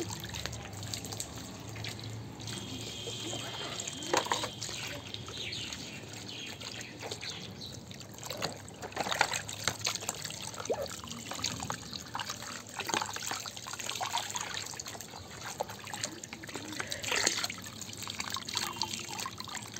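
Water trickling and splashing as toy vehicles are washed, with scattered small knocks and clatters.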